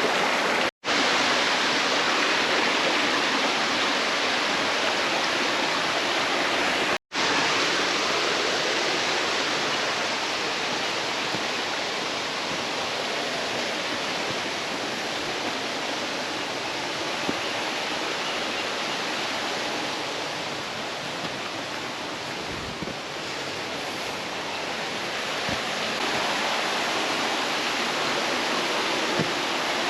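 Steady rushing of a rain-swollen mountain stream and waterfall, heard close up. The sound cuts out for an instant twice, about a second in and about seven seconds in.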